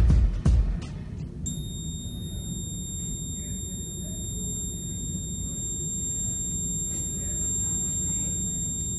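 A steady, high-pitched electronic tone like a piezo buzzer or alarm beep comes in about a second and a half in and holds without a break, over a low room rumble. A few heavy music beats sound right at the start.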